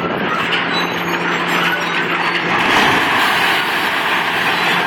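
A steel-framed industrial building collapsing as a hydraulic excavator pulls it down: over the excavator's steady engine hum, about two and a half seconds in comes a long, loud crashing rush of falling steel and debris.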